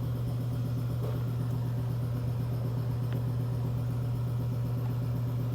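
Chevrolet Suburban engine idling steadily with a low, even hum, the throttle barely open. The live data read over it shows zero misfire counts, and the engine is judged to be running normally.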